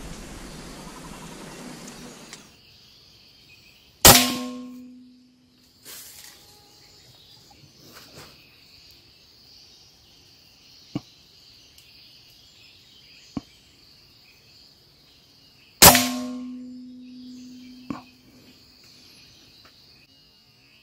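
Two loud, sharp bangs about twelve seconds apart, each ringing on with a low tone that fades over about a second, with a few faint clicks between them. A steady high insect trill runs underneath.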